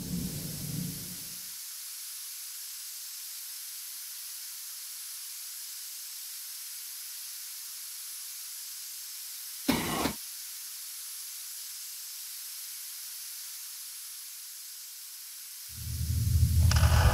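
A steady high hiss, like steam or air escaping, that settles in as a low rumble dies away in the first second or so. A short loud burst of noise breaks in about ten seconds in. Near the end a deep low rumble swells up.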